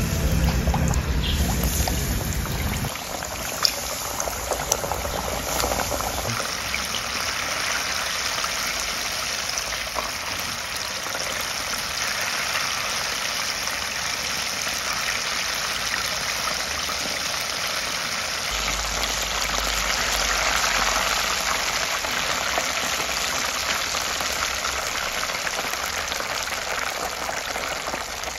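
Chicken wings deep-frying in a pot of hot oil: the oil sizzling and bubbling steadily, with a couple of sharp clicks a few seconds in.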